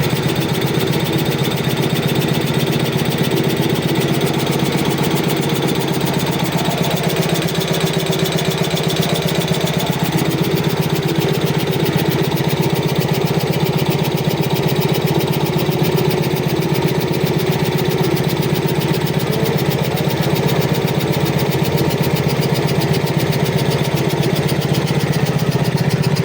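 Sanco VS20 25 HP high-pressure air compressor running steadily under test, with a loud, rapid, even pulsing that holds unchanged throughout.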